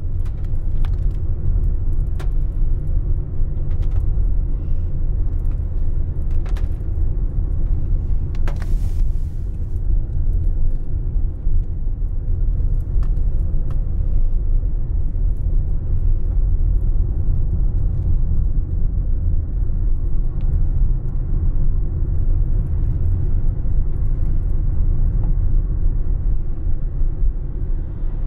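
Car driving on a wet road, heard from inside the cabin: a steady low rumble of engine and tyres, with scattered light ticks and a brief hiss about nine seconds in.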